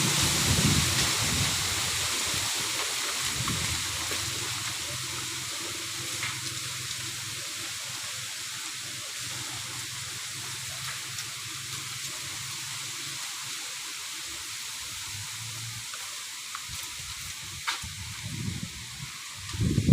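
Strong wind rushing through a bamboo grove: a steady hiss of leaves that eases over the first several seconds. Low rumbling gusts buffet the microphone at the start and again near the end.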